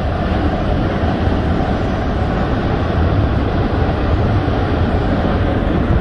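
Waterfall pouring steadily into its pool close by: a loud, even rush of water with a deep low rumble.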